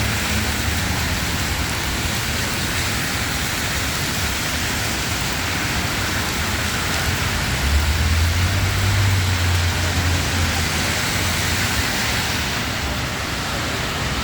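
Steady hiss of rain falling in a city street. A low rumble swells about halfway through and fades a few seconds later.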